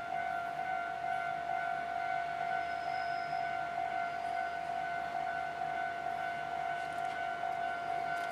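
Japanese railway level-crossing warning alarm sounding steadily, a continuous electronic ringing tone.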